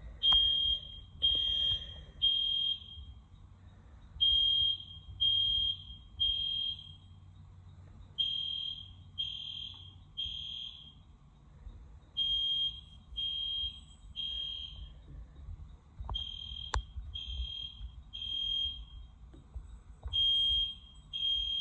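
EST Genesis fire alarm horn sounding a single high-pitched tone in the temporal-three evacuation pattern: three beeps, a pause, then three again, over and over. This is the alarm signal of an activated fire alarm system. A single sharp click comes near the three-quarter mark.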